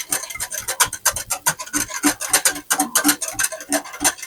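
Wire whisk scraping and rattling quickly against a glass bowl while whisking a thin chocolate pie filling of milk, cocoa, sugar and cornstarch, several quick strokes a second.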